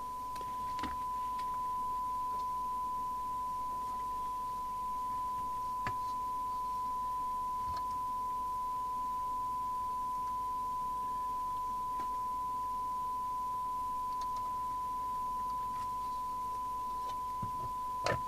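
Steady 1 kHz test tone from the York JCB863 CB radio's receiver: the signal generator's 1 kHz modulation, demodulated, as used for the SINAD measurement. A few light clicks and a knock near the end come from handling the metal case.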